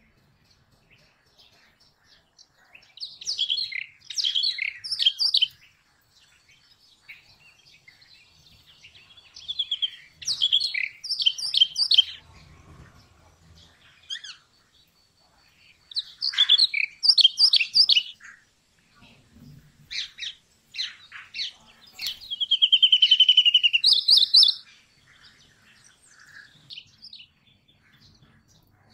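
Brown rock chat singing: short phrases of quick, high chirping notes every few seconds, with one longer, steady trill in the last third.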